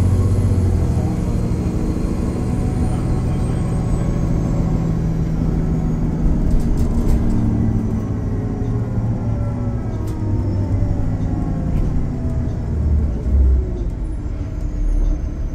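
A 2011 Nova Bus LFS transit bus heard from inside the passenger cabin while driving: a steady low engine and drivetrain drone whose pitch slowly shifts as the bus changes speed, with a few faint clicks and rattles.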